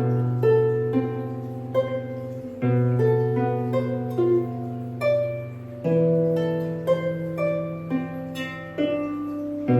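Solo harp played slowly, plucked notes ringing over low bass notes that are struck anew about every three seconds.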